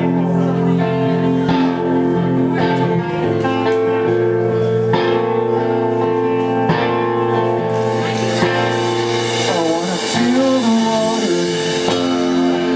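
Live guitar music: held chords with picked notes ringing over them.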